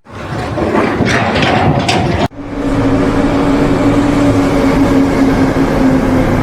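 Noisy machinery sound, then an abrupt cut about two seconds in to a steady motor hum whose pitch drifts slightly lower.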